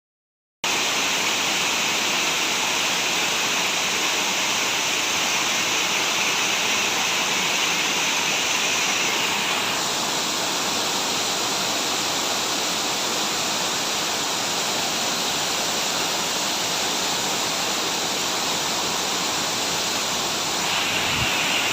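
Steady rush of falling water, starting suddenly after a moment of silence.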